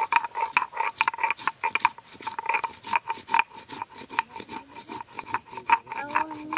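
Whole spices (nutmeg, mace, cardamom, cinnamon) being crushed with a stone roller on a stone grinding slab (shil-nora): a quick, irregular run of sharp cracks and gritty scraping clicks, several a second, as the roller is rocked back and forth over the pieces. Near the end a drawn-out pitched call begins.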